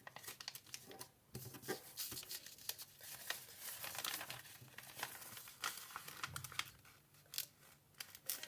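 A sheet of A4 paper rustling and crinkling as it is handled and folded into a paper airplane, with many short, sharp crackles as the creases are pressed.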